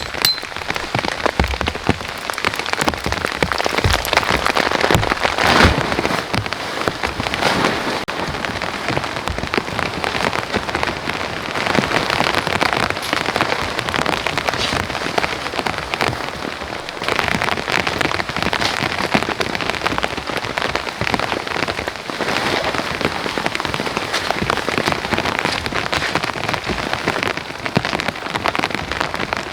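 Steady rain falling hard, countless drops striking a surface in a dense, continuous patter of fine ticks, a little heavier around four to six seconds in.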